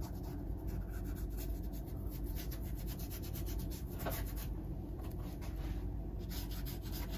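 Small paintbrush rubbing and scratching across a canvas of dried acrylic paint in many short, repeated strokes.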